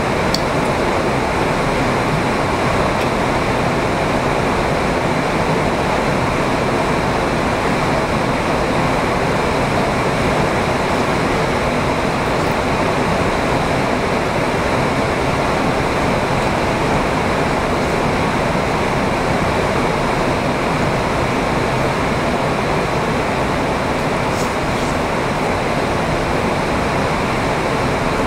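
Steady heavy rain, a loud even rushing hiss with no let-up.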